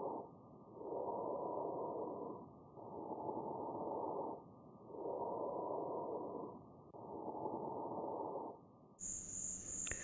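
Bronchovesicular breath sounds heard through a stethoscope: muffled, rushing airflow in even phases of about a second and a half each, with short pauses between. Inspiration and expiration are about equal in length, which is typical of breathing over the main bronchi. Near the end a steady high tone with hiss comes in.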